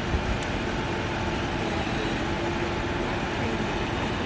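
A heavy engine running steadily at an even pitch, with a faint constant hum.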